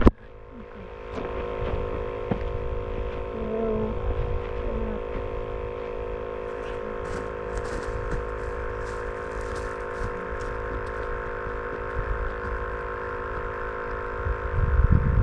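A steady hum made of several held tones over a low rumble, with the rumble swelling louder near the end.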